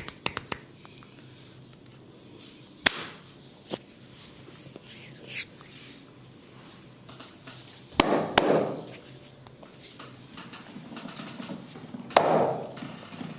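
Barber's hands working on a client's head and neck. A run of fast fingertip tapping stops half a second in, then come a few widely spaced sharp smacks on skin. The two loudest smacks are each followed by about a second of rubbing.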